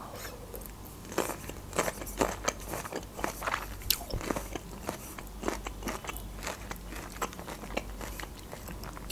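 Chewing a slice of fresh nectarine close to the microphone: quick wet crunches and mouth clicks, thinning out near the end.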